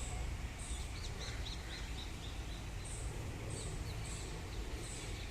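Birds chirping in the background: short high chirps repeated every half second or so, with a quick run of chirps about a second in, over a steady low hum.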